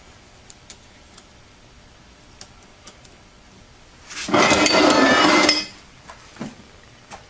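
Light clicks of metal transmission parts being handled, then about four seconds in a loud metallic clatter that rings for about a second and a half, as steel parts knock against each other and the steel workbench.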